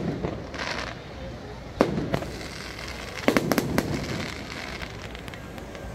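Fireworks going off in sharp bangs: one at the start, two just under two seconds in, then a quick string of four around three and a half seconds.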